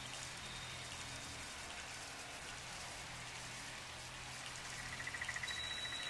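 Faint steady outdoor background hiss with no speech, with a thin high tone and a brief, rapid chirping about five seconds in.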